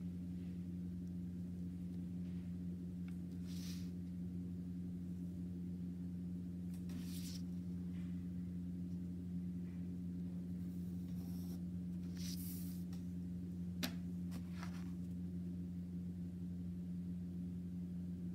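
Pencil scratching on paper along a ruler as lines are drawn: a few short strokes, with a sharp click about fourteen seconds in, over a steady low hum.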